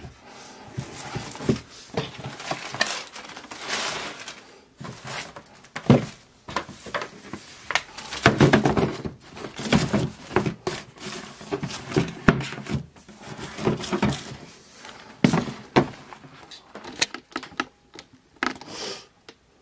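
Handling noise of cardboard shoeboxes and sneakers being moved and set down: a string of knocks and thuds with rustling between them.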